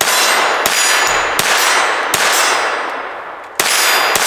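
Kel-Tec CP33 .22 LR pistol fired unsuppressed, six shots in a string with a pause of about a second and a half before the last two. Each shot is followed by a long metallic ring from steel targets.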